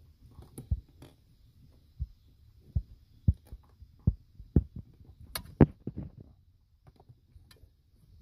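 Irregular dull thumps and knocks as hands work the wiring harness and plastic electrical connector of a blend door actuator under a truck's dashboard, with a couple of sharper clicks about five and a half seconds in.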